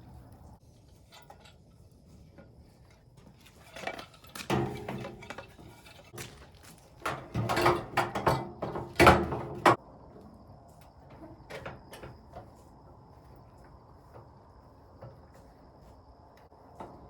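A run of irregular clattering knocks and clicks over several seconds, starting about four seconds in and stopping about ten seconds in.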